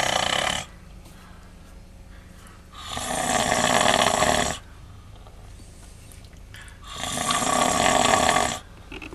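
A man snoring in slow, regular breaths: long snores of nearly two seconds each, coming about every four seconds, three in all, the first one ending just after the start.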